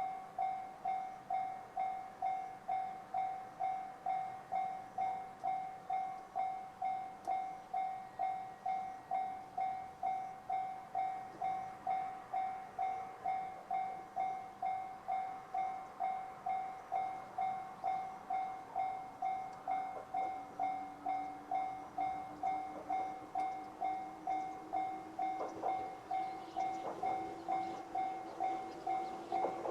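Japanese railway level-crossing warning bell (JR standard electronic tone) ringing steadily, just under two strikes a second. In the last ten seconds an approaching JR 211-series train rises under it, with a slowly rising hum and growing rail noise.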